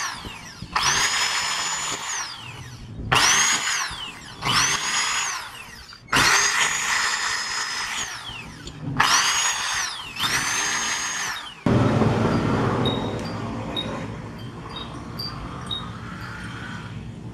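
Electric hand drill run in about six short bursts, its motor whine rising to full speed and falling away each time, as it drills into a motorcycle's metal ignition lock cylinder to get past the lost key. About two-thirds of the way through the drilling stops and a quieter, steady low hum is left.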